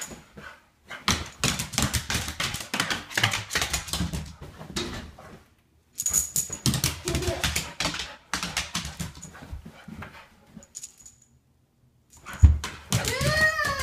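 A pit bull-type dog digging and scratching at its cushioned dog bed and blanket: quick runs of scratching and rustling, a short pause, then a thump and a few short whines near the end.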